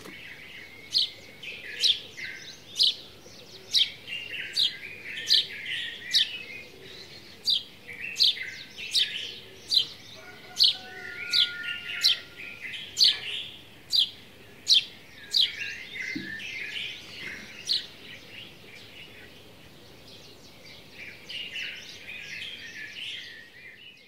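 Morning chorus of birds. A loud, sharp, falling chirp repeats about once a second for the first fifteen seconds over a continuous bed of busier twittering, which thins out later.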